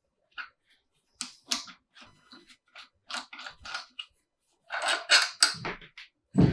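Irregular sharp metallic clicks and clacks of hand tools and engine parts being handled during the teardown of a BMW M50B25 engine. There are single knocks at first, then a quicker run of several, and a denser cluster near the end.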